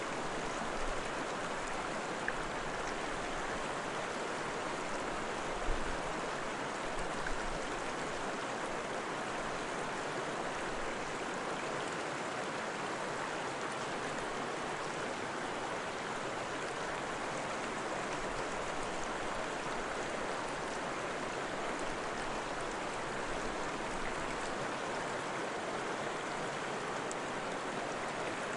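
Steady rushing of flowing stream water, even and unbroken, with a few faint taps in the first several seconds.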